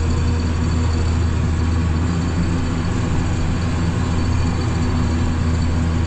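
Tractor engine running steadily, heard from inside the cab as a constant low drone, while a forage harvester works just ahead chopping corn for silage.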